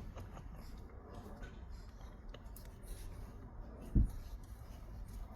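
Faint scratching and small clicks of a shift knob being screwed by hand onto the shifter's threads, over a steady low hum. A single dull thump comes about four seconds in.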